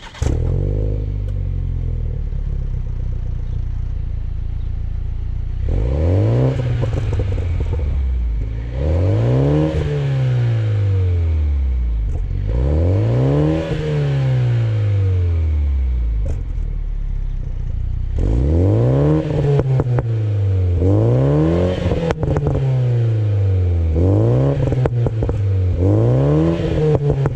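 Toyota GR Supra 2.0's turbocharged four-cylinder engine starting, idling for a few seconds, then being revved in neutral again and again, each rev rising and falling in pitch. The blips come closer together in the second half. The exhaust note is being shown off.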